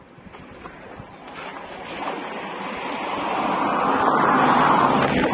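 A gust of wind rushing, building steadily from about two seconds in to its loudest near the end.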